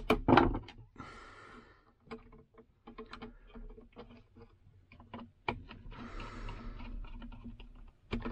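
Small clicks and taps of hands, pliers and wire working a core into an inline extractor fan's plastic terminal block, with a louder knock at the start and two short spells of rustling.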